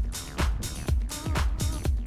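Background electronic dance music with a steady kick-drum beat about twice a second and crisp hi-hats.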